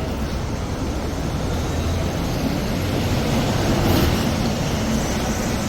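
Steady low rumble of an airport limousine bus's engine and running gear, heard from inside the passenger cabin.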